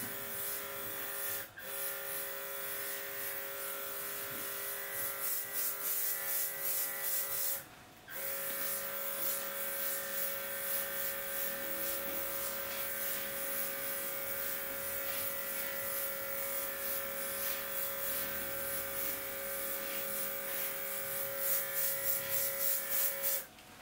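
Mini compressor of a portable USB-C airbrush running with a steady whine, over the hiss of the spray. It stops briefly about a second and a half in and for about half a second around eight seconds in, then starts again.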